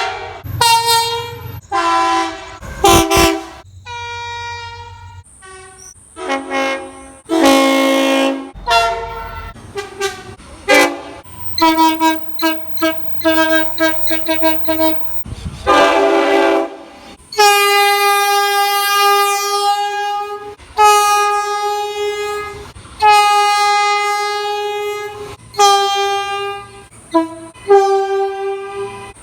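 Train horns sounding in a rapid string of short toots and longer blasts, with the pitch and chord changing abruptly from one blast to the next. From a little past the middle, a series of long, held blasts.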